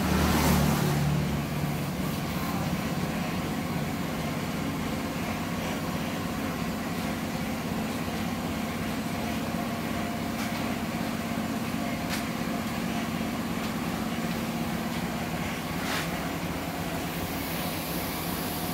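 A steady low mechanical hum from a running machine, with two faint clicks late on.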